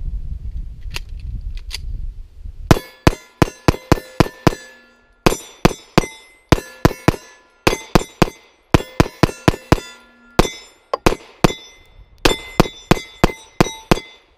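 9mm Glock 26 pistol firing rapidly from an extended ETS magazine, in several quick strings of shots at about five a second with short pauses between them. A low rumble comes first, during the first couple of seconds.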